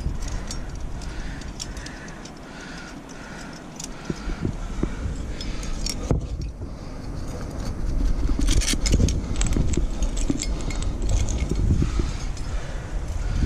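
Climbing hardware on a harness, aluminium carabiners and quickdraws, clinking and jangling in many small sharp clicks as the climber moves and handles a quickdraw. A louder low rumble of rubbing or wind on the microphone joins about halfway through.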